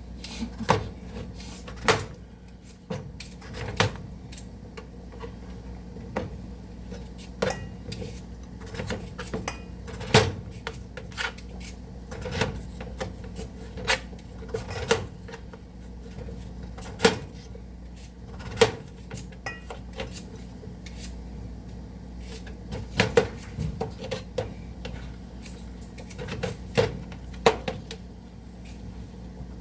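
Kitchen clatter: irregular knocks and clicks of dishes, pots and utensils being handled, some of them sharp, over a steady low hum.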